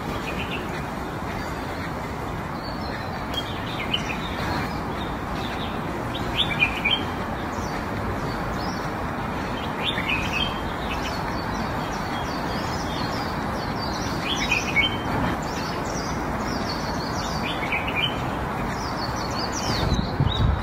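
Small birds chirping again and again in short, irregular calls over a steady background hiss of outdoor noise; a low rumble comes in right at the end.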